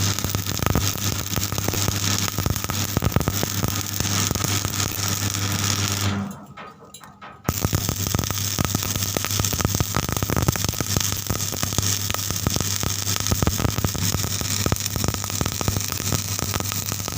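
Stick arc welding on steel pipe: the arc crackles and sizzles steadily over the low hum of the welding machine. About six seconds in the arc breaks off for a little over a second, then is struck again and carries on.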